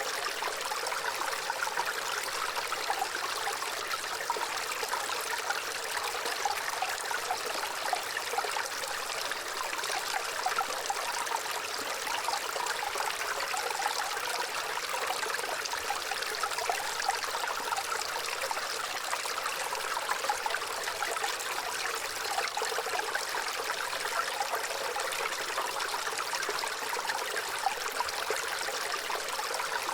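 Gently running water trickling and babbling steadily, like a small stream, with fine splashy flickers over an even rush.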